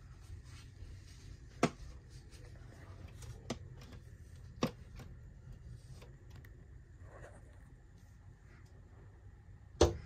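A bird striking a window pane from outside: four sharp knocks on the glass, spaced irregularly, the last and loudest near the end, with a few fainter taps between.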